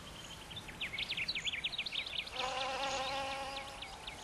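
A fast, irregular run of short high chirps, joined about halfway in by a steady insect buzz: a male wasp beating its wings as it tries to mate with an orchid's wasp-like decoy lip.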